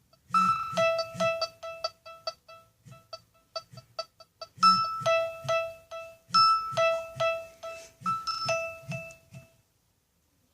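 A Nokia ringtone melody played through a Sony Ericsson W595 phone's loudspeaker: short, quick notes in repeating phrases that stop near the end.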